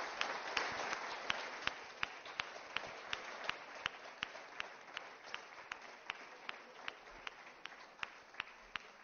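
Audience applauding. The general clapping slowly dies away while one clapper close by keeps a steady beat of sharp claps, nearly three a second.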